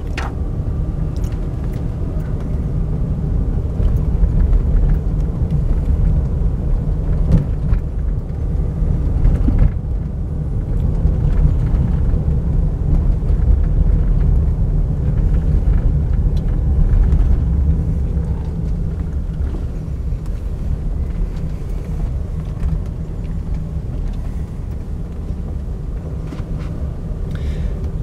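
Car engine and road rumble heard from inside the cabin while driving slowly: a steady low rumble with a faint engine hum.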